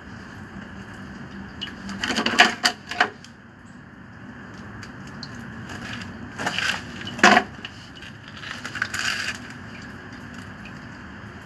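Short clinks and clatters of hand tools and small metal parts being handled during electrical work on a water pump, in a few bunches: about two seconds in, twice around six to seven seconds in (the loudest), and again near nine seconds.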